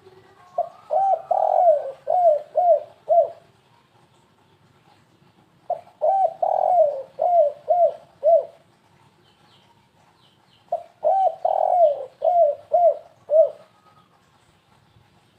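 Spotted dove (tekukur) cooing in the stuttering 'kuk 3' style: three phrases of rapid, halting coos, each about 3 seconds long with a longer note near its start, coming about every 5 seconds.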